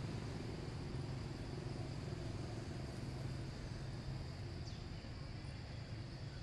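Steady outdoor background: a low hum under a thin, constant insect drone. A faint short falling whistle comes about two-thirds of the way in.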